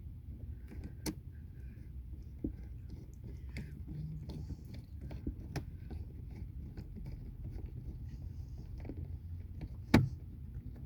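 Small clicks and taps of a plastic car door lock knob being handled and threaded back onto its lock pin, with one sharp, loud click near the end. A steady low hum runs under it.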